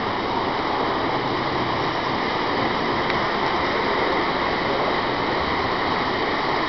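Model trains running on the layout's track: a steady rolling rumble and whir of wheels and motors, over an even hiss of room noise.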